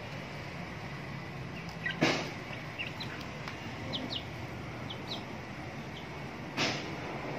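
Chickens feeding: several short, faint high peeps from a chick over the middle seconds, and two brief louder scuffling bursts, about two seconds in and near the end, over a steady low hum.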